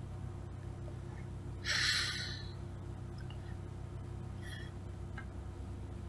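A person's short, noisy intake of breath about two seconds in, with a fainter one later, over a steady low hum.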